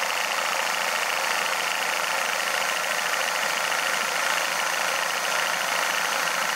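AA Sherwood-design HO-gauge live steam model of a GWR 42XX 2-8-0 tank locomotive running forward on compressed air with its wheels off the track: a steady hiss of air with a fast, even beat of exhaust from its cylinders.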